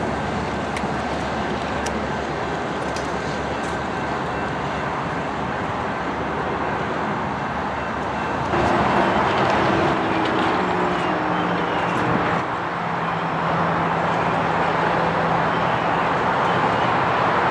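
Steady outdoor traffic noise. About eight and a half seconds in it turns suddenly louder, with a steady engine hum that holds to the end.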